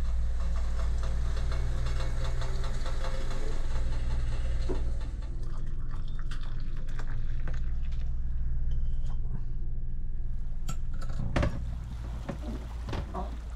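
Hot water being poured from a stainless-steel kettle into glasses, over a steady low hum. A few light clicks near the end.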